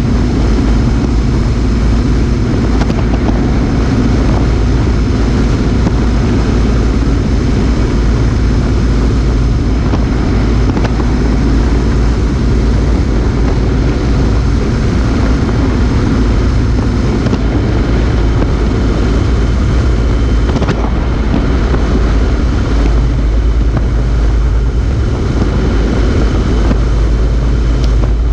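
Motorcycle cruising at road speed, heard from a camera mounted low by the front wheel: a steady, loud rush of wind and tyre noise with the engine running underneath.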